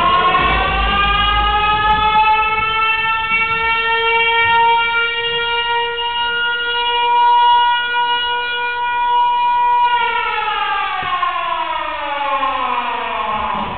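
Siren sound effect, civil-defense style, played over the sound system as part of the dance soundtrack. It winds up in pitch, holds one steady tone for about eight seconds, then winds down slowly over the last few seconds.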